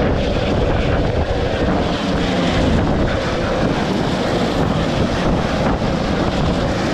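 Hovering helicopter's rotor noise and downwash rushing over the microphone: a loud, steady noise as the hoist lifts off.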